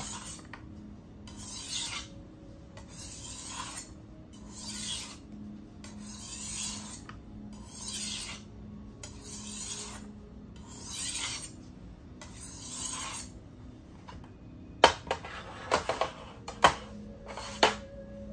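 A small block is rubbed back and forth across a whetstone in about nine even gritty scraping strokes, roughly one every second and a half. The rubbing stops, and several sharp clacks follow as hard objects are set down on the metal tray.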